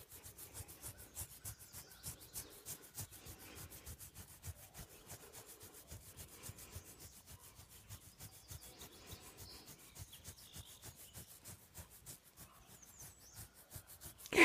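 A hand scratching a wolf's belly fur in quick, steady strokes: soft, rhythmic rubbing close to the microphone.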